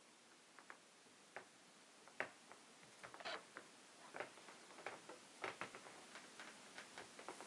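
A woman's footsteps as she walks across a stage floor: faint, irregular clicks of her shoes, sparse at first and coming several a second from about three seconds in.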